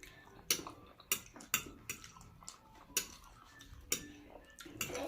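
Eating utensils clicking and tapping against a bowl of noodles, about seven sharp, irregular clicks.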